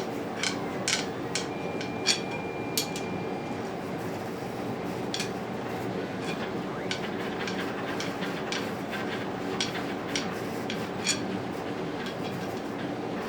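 Irregular metallic clicks and clinks of a hand tube cutter being tightened and turned around metal tubing, over the steady hum of a 3D printer running.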